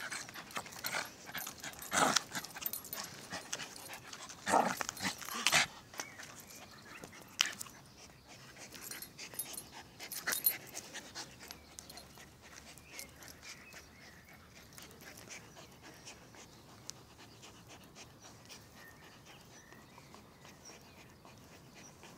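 A young dog playing with a terry towel on paving: scuffling and tugging sounds, with several louder rustles and knocks in the first half and quieter scuffling after that.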